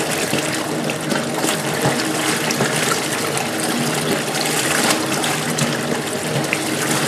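Washing machine running with water splashing and churning over a steady motor hum.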